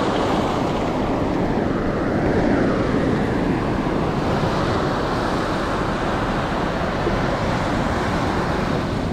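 Steady rush of ocean surf washing in and out over shallow water at the beach's edge.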